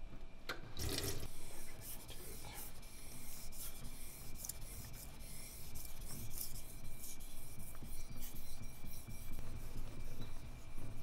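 Steel yanagiba blade being stroked back and forth on a wet whetstone, a repeated gritty rubbing scrape.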